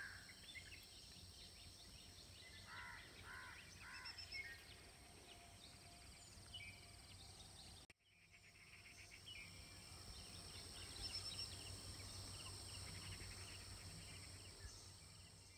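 Quiet rural dawn ambience: a bird gives a short run of four repeated chirps about three seconds in, with other faint bird calls and thin high steady tones in the background. The sound drops out briefly about halfway through, then the faint outdoor hush resumes.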